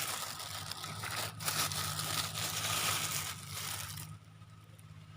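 Leaves and twigs rustling and crackling as they are pushed through and handled, loudest in the middle and dying away about four seconds in.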